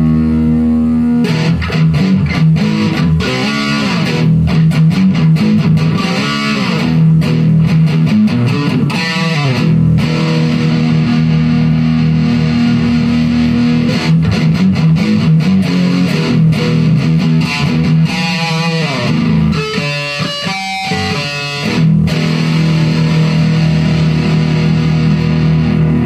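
Electric guitar played through a Marshall Jackhammer JH-1 overdrive/distortion pedal, with a distorted tone. A held chord opens, followed by picked riffs and chords, a run of high single notes about twenty seconds in, and a chord left ringing at the end.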